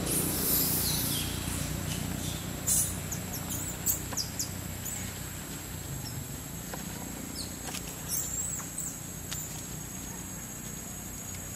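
High-pitched animal chirps and short gliding squeaks, coming in scattered clusters, thickest in the first second and again around the middle, over a steady high-pitched insect whine and a low steady hum.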